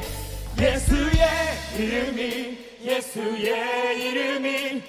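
Live worship singing: a leader and congregation holding long sung notes of a Korean worship song, with a few low beats in the first second or so.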